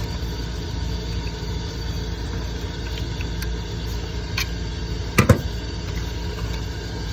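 A second furnace running with a steady low hum, with a faint click about four seconds in and a sharper click about five seconds in.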